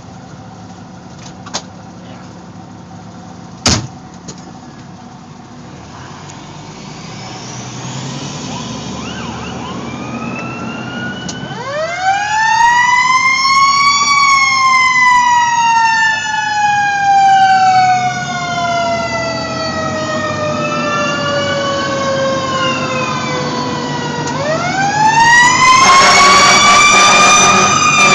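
Fire engine's siren, heard over the truck's engine. It winds up to a loud wail about twelve seconds in, falls slowly for about ten seconds, then winds up again near the end. Before the siren starts, only the engine is heard, with a single sharp click about four seconds in.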